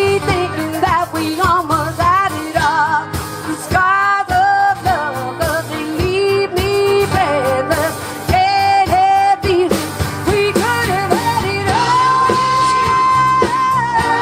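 A song performed live: a singer's voice over band accompaniment with regular drum strokes, and a long held note near the end.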